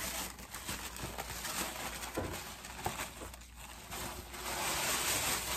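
Plastic wrapping rustling and crinkling with scattered light clicks and taps as a silicone pastry mat is pulled out and unrolled by hand.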